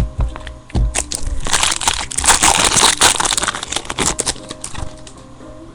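Foil wrapper of a trading-card pack crinkling and crackling as it is torn open and handled, with a couple of low thumps in the first second.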